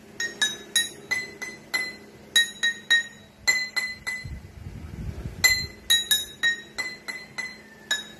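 A row of drinking glasses filled with water, struck one after another to play a melody: sharp ringing notes of slightly different pitch, about two to three a second, with a pause of over a second around the middle.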